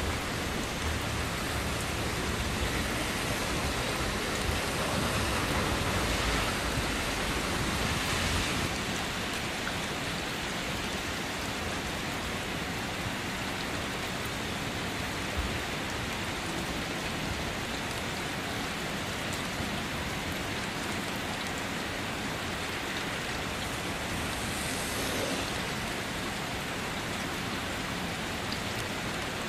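Steady rain falling, an even hiss, a little louder with a low rumble underneath for the first eight seconds or so.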